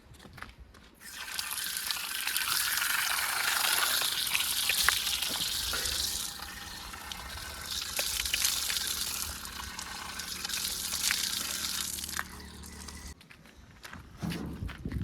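Wet mud and soil pouring, with scattered clicks, from a backhoe loader's bucket into a tractor trolley, over the low steady hum of a diesel engine. The pour starts about a second in and stops shortly before the end.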